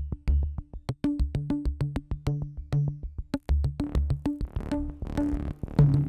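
Background electronic music with a steady drum-machine beat over synthesizer bass.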